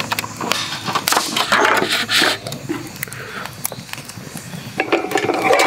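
Thin plastic clamshell food pack being handled and opened, with the lid crinkling and clicking in a quick run of small snaps.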